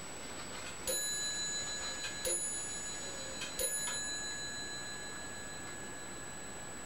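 Three bell-like chimes, about a second and a half apart, each ringing on and slowly fading.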